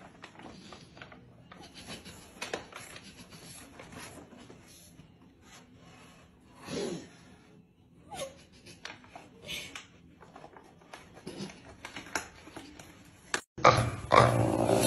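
Soft crinkling and rustling of a plastic cat-food bag as a cat drags it across a tiled floor, with scattered light knocks and a short falling cry about seven seconds in. Near the end, after a sudden break, a much louder, low grunting animal sound.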